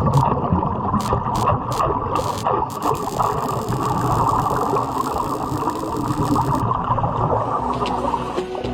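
Underwater welding arc crackling and sputtering steadily. Several short hissing bursts come in the first two and a half seconds, then a longer hiss runs from about three to six and a half seconds in.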